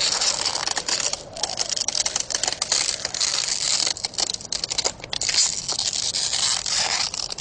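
Ice crackling and crinkling as a body freezes over, a dense run of fine high clicks that swells and thins several times.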